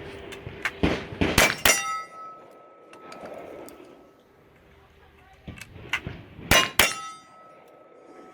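Gunshots fired at steel targets, each hit answered by a metallic clang and a lingering ring from the struck plate. There are two strings of about three or four shots, the first about a second in and the second from about five and a half to seven seconds in.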